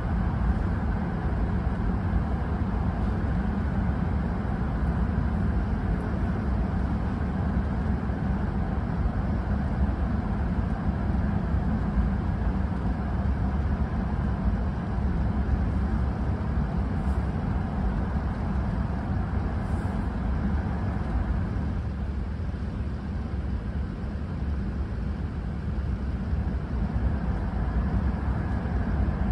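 Steady low rumble and rushing of an E5-series Shinkansen car running at speed, heard from inside the passenger cabin. It eases a little about twenty-two seconds in, then builds again.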